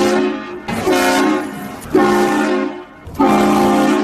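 Air horn sounding in a string of loud blasts, each about a second long, one straight after another.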